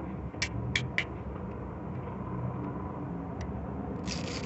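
Handling noise from fingers picking at packing tape on a wrapped tube: three quick light ticks in the first second, then a short scraping rustle near the end.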